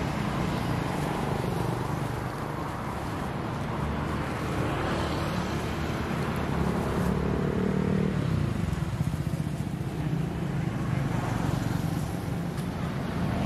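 Street traffic noise: a steady rumble of passing vehicles.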